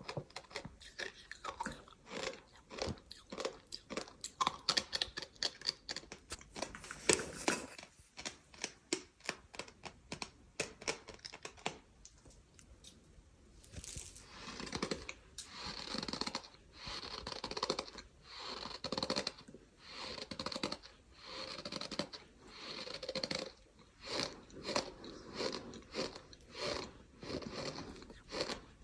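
Gritty, sand-like material crunching and squeaking close to the microphone: a dense run of sharp crackly crunches, a brief lull about twelve seconds in, then squeaky crunches coming regularly about once a second.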